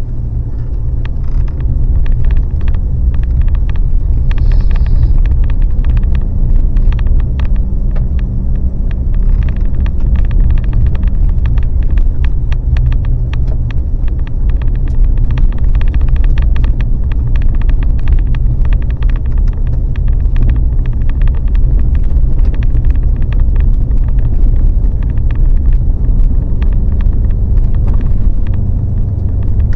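Vehicle running with a loud, steady low rumble and frequent small rattles, as when driving on a rough road.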